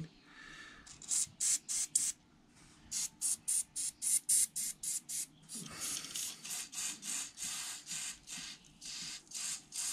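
WD-40 aerosol sprayed through a thin straw into a small lawnmower carburetor jet in a rapid series of short hisses, about three or four a second, with a short pause about two seconds in and one longer hiss near the middle. The blasts are flushing out a blocked jet.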